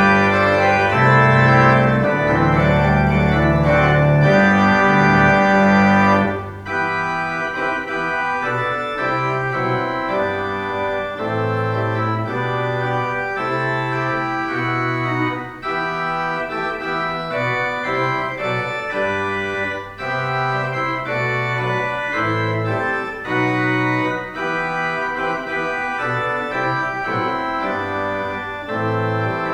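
Church organ playing a march in G as the service prelude. Full, loud chords over a deep bass line, dropping to a lighter, softer passage about six seconds in.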